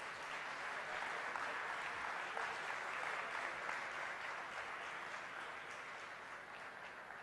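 Audience applauding, swelling over the first second and slowly dying away toward the end.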